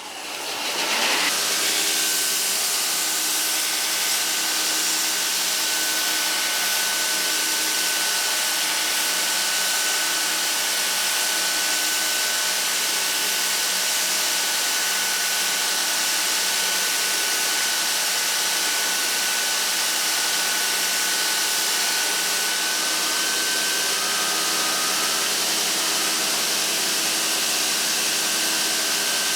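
Ex-Cell-O 3-by-110-inch metal belt grinder, its three-phase motor run from a VFD at 65 Hz, coming up to speed about a second in and then running steadily with a high whine, as metal is ground at an angle against the belt.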